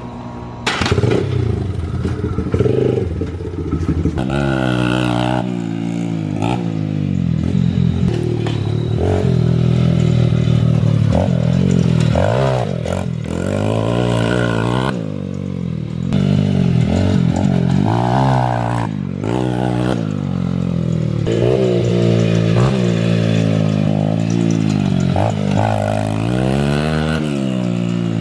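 Dirt bike engine being ridden, its revs climbing and dropping back again and again. There is a sudden clatter about a second in.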